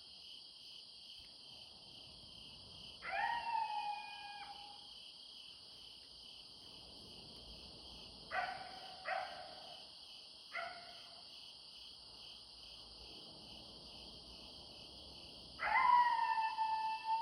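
An animal calling at night: a drawn-out wailing call about three seconds in, three short sharp barks around the middle, and another drawn-out call near the end. Behind it is a steady high chorus of night insects.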